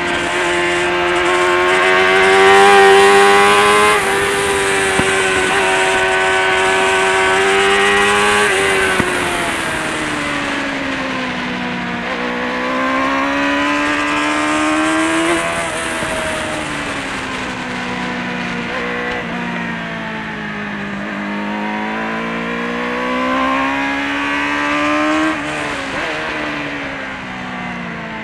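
Kawasaki ZXR400's inline-four engine running at high revs, heard onboard with air rushing past. The engine note climbs under acceleration for the first eight seconds or so, drops away over the next few seconds, then climbs and falls twice more.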